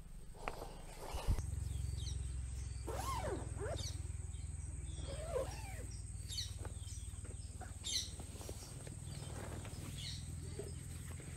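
Wild birds calling outdoors: many short high chirps and a few lower, arching calls, over a steady low rumble that starts about a second in.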